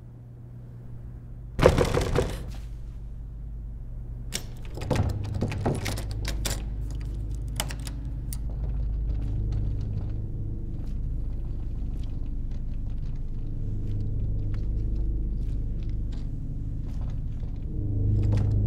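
Low, steady rumbling drone of horror-film sound design, broken about a second and a half in by a sudden loud bang, followed by a run of knocks and clicks. The drone swells near the end.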